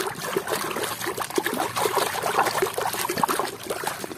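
A hand sloshing and scrubbing a mud-caked toy in a tub of muddy water: a continuous run of irregular splashes and trickles.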